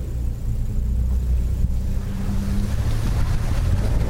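A 2015 Nissan Frontier Pro-4X's 4.0-litre V6 runs at a steady low pitch as the truck drives a dirt trail. Wind rushing over the microphone grows louder near the end.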